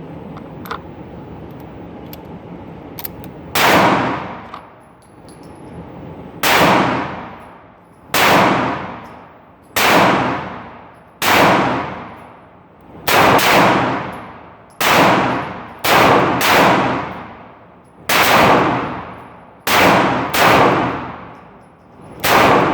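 Gunshots from a .38 Special revolver, about fourteen over some nineteen seconds, the first about three and a half seconds in; each is a sharp crack with a long ringing tail, some coming in quick pairs.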